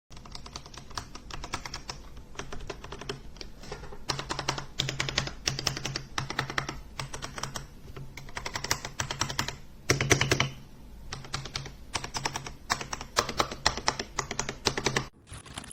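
Typing on an RK Royal Kludge RK61 60% mechanical keyboard: quick runs of key clicks in uneven spurts, with the loudest flurry about ten seconds in, stopping shortly before the end.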